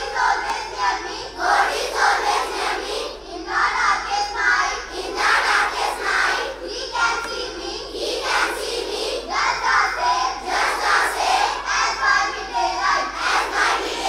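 A large group of schoolchildren singing a prayer together in unison, in phrases broken by short pauses every second or two.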